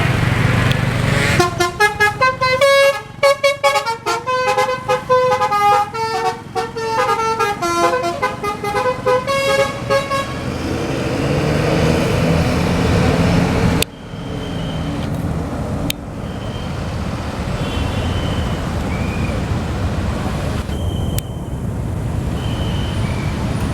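A bus's 'telolet basuri' multi-trumpet musical horn playing a fast melody of short notes for about nine seconds. Then the bus engine keeps running with a steady rumble.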